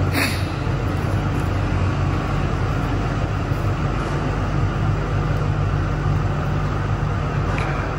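A steady low mechanical hum with an even noise over it, with one brief light click right at the start.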